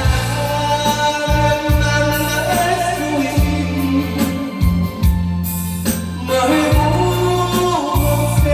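Korean trot song playing: a wavering lead melody of long held notes over a steady bass line.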